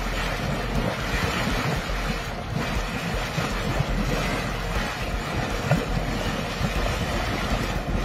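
Mud volcano erupting: a loud, steady rushing and churning noise with constant low rumbling buffets, mixed with wind on the microphone.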